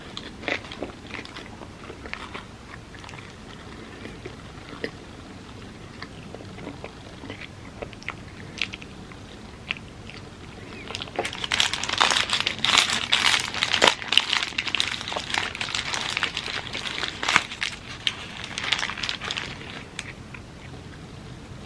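Close-miked eating of a pita gyro wrap: scattered small chewing and mouth clicks, then from about halfway a dense stretch of loud crunching and crackling that lasts several seconds.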